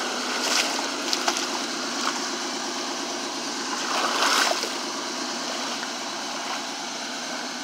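Shallow floodwater running and splashing, with brief louder splashes about half a second and about four seconds in.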